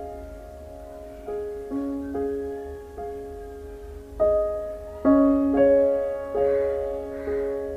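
Slow, soft piano music: single notes and chords struck every second or so and left to ring and fade.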